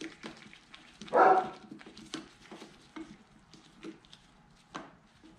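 Small clicks and taps of a screwdriver and fingers working small screws into the side of a KTM 85's carburetor, with one short, louder bark-like sound about a second in.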